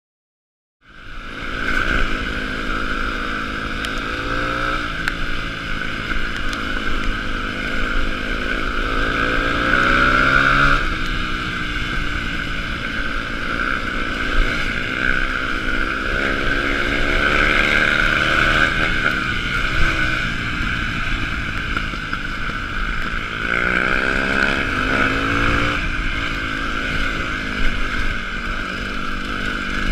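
Yamaha WR250F single-cylinder four-stroke trail bike engine running under way, starting about a second in, its revs rising and falling several times as the rider opens and closes the throttle through the gears.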